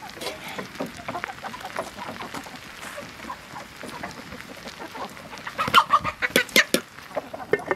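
Chickens clucking, with a loud burst of calls near the end.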